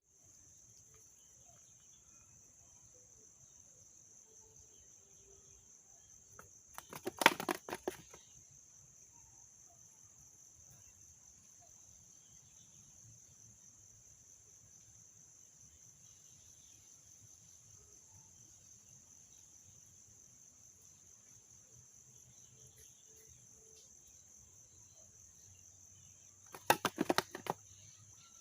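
Steady high-pitched insect chirring, broken twice, about seven seconds in and again near the end, by a loud second-long burst of rapid clicking.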